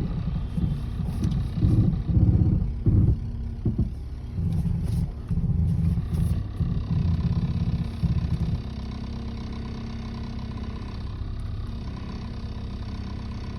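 Car engine running, surging unevenly for the first eight seconds or so, then settling to a steady idle. The owner wonders whether the noise is piston slap.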